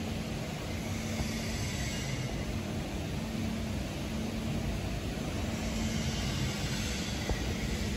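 Steady low machine hum and rumble with a faint tone that comes and goes, typical of a photopolymer plate-making machine running with its power on.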